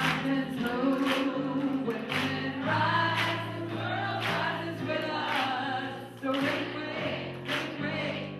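A woman singing into a microphone, accompanying herself on a Yamaha electronic keyboard, with held vocal notes over a slow-moving bass line.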